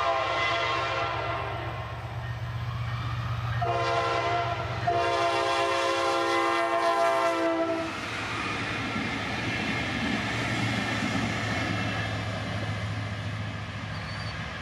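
Four Wabtec ES30ACi diesel-electric locomotives passing on a test run: the air horn sounds twice, a short blast and then a longer one of about four seconds, over the steady drone of the diesel engines. After the horn the locomotives' engines and wheels rumble on as they run by.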